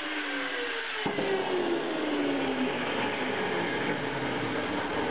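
Electric grinder winding down after being switched off, its pitch falling steadily over about two and a half seconds, with a sharp knock about a second in.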